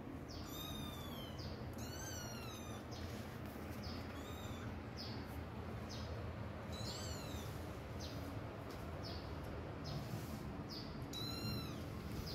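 Kittens mewing: high, thin cries that rise then fall in pitch, about five clear ones with fainter short mews between, over a steady low background hum.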